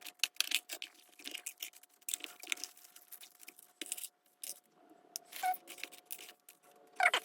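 Fishing tackle being rummaged and sorted in a plastic tackle box: a stream of small clicks, rattles and scrapes as lures, dodgers and hooks are moved about.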